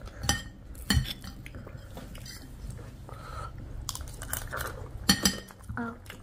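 Metal spoon scraping and clinking on a ceramic plate, with a few sharp clinks, and a person chewing a mouthful of crunchy chatpate, a spicy puffed-rice snack.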